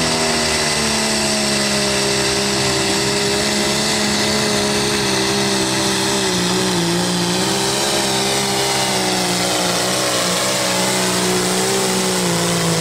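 Light limited super stock pulling tractor's engine running flat out under the load of the weight sled. It is a loud, steady drone whose pitch wavers and sags briefly about six seconds in and again around eleven seconds.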